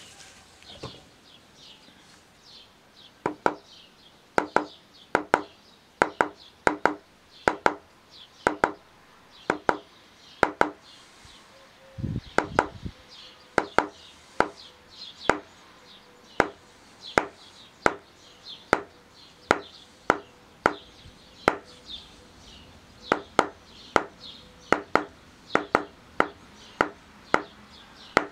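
Mallet striking a metal leather-stamping tool on vegetable-tanned tooling leather, tapping out a letter outline: sharp knocks at roughly one to two a second, often in quick pairs. One dull low thump about 12 s in.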